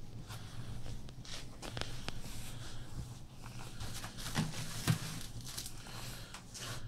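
Scattered rustles and small clicks over a steady low hum, with two sharper knocks about four and a half and five seconds in.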